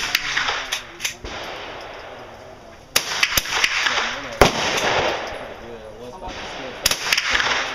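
Remington .22 pump-action rifle firing: several sharp cracks at irregular spacing, a second or a few seconds apart, each trailing off in a short echo.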